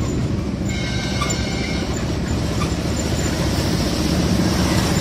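Steady loud rumble of a moving vehicle, with a faint high whine for about a second near the start.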